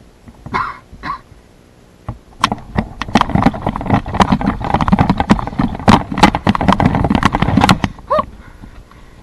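Rustling and crunching of someone moving quickly through dry leaves and brush, a dense run of rapid crackles for about five seconds, ending with a brief higher sound.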